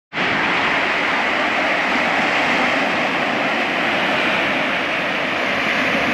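Steady loud rushing noise of sea water and wind, cutting in suddenly and holding even throughout.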